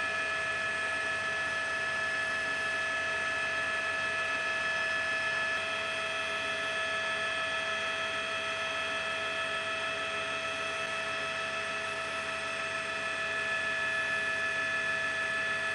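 Steady whine and hum of a helicopter's turbine and gearbox heard from inside the aircraft, several fixed high tones over a constant hiss.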